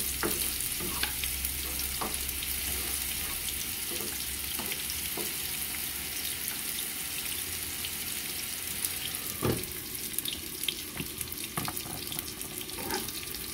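Oil sizzling steadily as onion and serrano chile fry in a skillet, with scattered clicks and scrapes of a spoon and lid against the pans and one louder knock about nine and a half seconds in.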